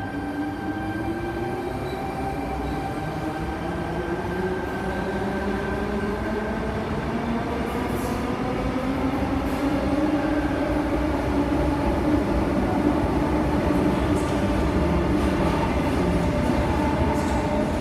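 Tangara electric train departing, its traction whine rising steadily in pitch as it accelerates, over a rumble of wheels and cars that grows louder as the train passes.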